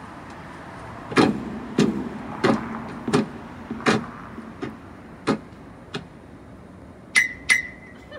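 Footsteps walking away on a hard floor, about one step every two-thirds of a second, growing fainter. Near the end come two sharp clicks with a brief high squeak.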